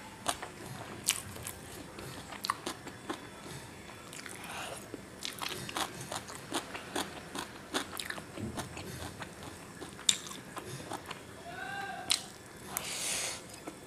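Close-miked mouth sounds of chewing chow mein noodles: a steady run of small wet clicks and crunches.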